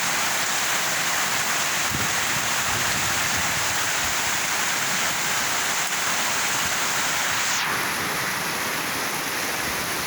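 Heavy rain pouring down steadily, a dense even hiss of water; the hiss turns a little duller about three-quarters of the way through.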